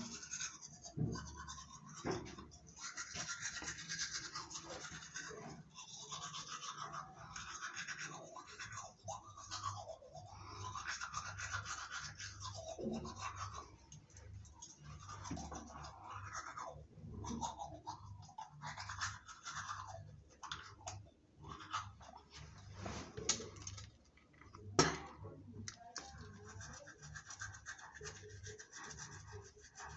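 Teeth being brushed with a toothbrush: irregular scrubbing strokes, with a couple of sharp clicks near the end.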